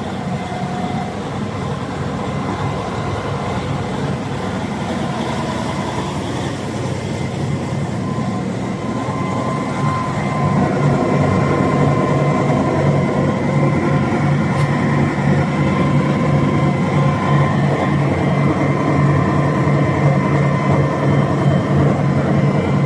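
Rostselmash 460 Delta Track tractor's diesel engine idling steadily. It becomes louder about ten seconds in.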